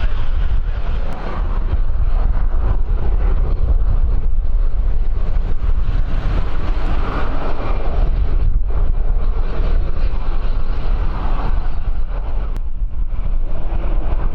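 Strong wind buffeting the microphone: a loud, steady low rumble with a rushing hiss that swells and eases in gusts.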